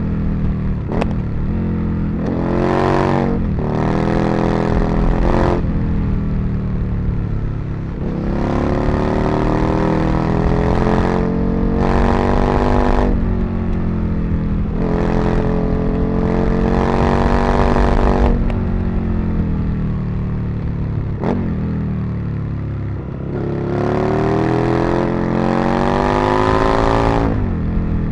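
Aprilia RSV Mille's 998 cc V-twin engine accelerating hard. It revs up again and again, and the pitch drops sharply at each gear change, about ten times over the stretch.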